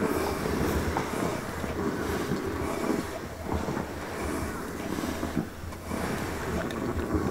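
A pile of sleeping piglets grunting and snuffling through runny noses, irregular low grunts over a steady low rumble.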